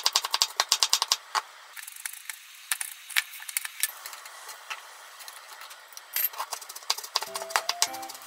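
Kitchen knife chopping onion fast on a wooden cutting board, about seven strokes a second, stopping about a second in. Then scattered light taps and clicks as asparagus pieces are moved about in a frying pan with chopsticks. Soft background music comes in near the end, with a few more knife strokes.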